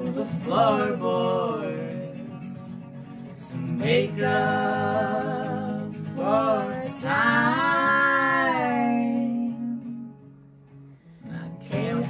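Strummed acoustic guitar with a woman singing long, sliding notes over it. Near the end the music drops away briefly, then the guitar and voice come back in.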